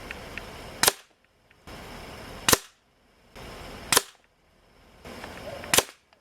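Umarex Notos PCP air rifle firing pellets, four sharp shots about one and a half seconds apart. Each shot is a short crack heard over a little background hiss, which cuts off abruptly after it.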